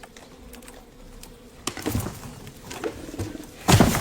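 Bees buzzing faintly around a fallen wild beehive, then louder rustling and knocking as bear cubs move about on it, with one loud thump near the end.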